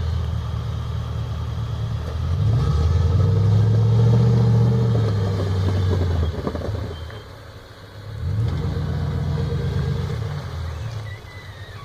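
Car engine revved up twice, each time rising in pitch to a held rev and then dropping back, with a short lull between the two.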